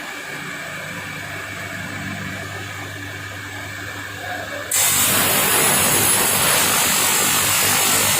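Spiral duct forming machine running: a steady motor hum, then about two-thirds through a much louder, steady rushing noise cuts in suddenly and carries on.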